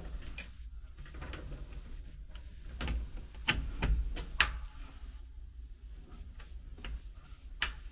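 Scattered light clicks and taps from meter test probes and a clamp meter being handled and set against the metal terminals and cabinet of an air handler, about half a dozen sharp knocks in all, over a faint low steady hum.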